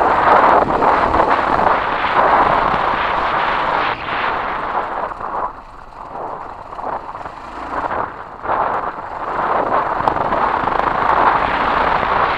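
Kawasaki KLR 650 dual-sport motorcycle riding over a gravel track, its single-cylinder engine running under heavy wind rush on the helmet camera's microphone. The noise dips for a few seconds in the middle, then builds back up.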